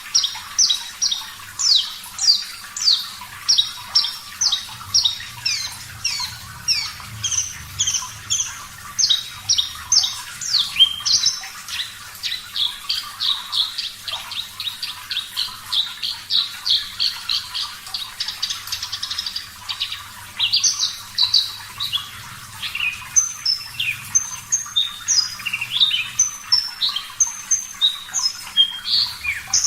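Javan bush lark (branjangan) singing: a long run of quick, high, downward-slurred notes that packs into a faster, denser trill midway, then breaks into varied, jumpy chirps.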